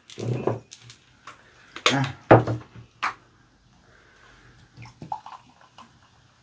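Cola poured from a plastic bottle into a cup, with a faint fizzing pour and a few small glugs around five seconds in. Before it come several sharp knocks and clatters from the bottle and tableware being handled.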